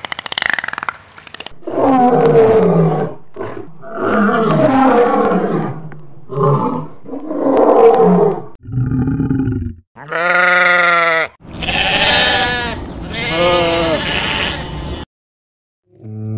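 A lioness growling in a run of short, rough calls, then three longer, bleat-like calls from another animal.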